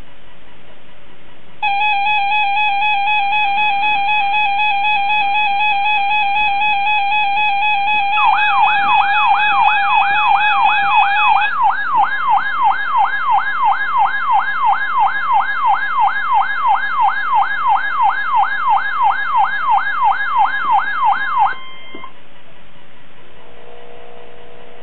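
Emergency Alert System Required Monthly Test alert tones over weather-radio hiss: a steady electronic alarm tone, joined partway through by a fast rising-and-falling siren-like warble of about three sweeps a second. The warble cuts off suddenly, leaving the radio hiss.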